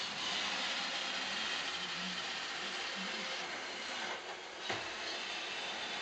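iRobot Roomba 630 robot vacuum running, a steady hiss from its vacuum motor and brushes, with a single knock a little past three-quarters of the way through.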